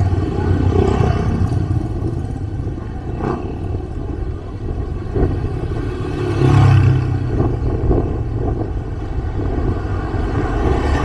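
Small motorbikes and scooters riding past close by on a street, their engines running. One passes near the start, and the loudest pass comes about six to seven seconds in.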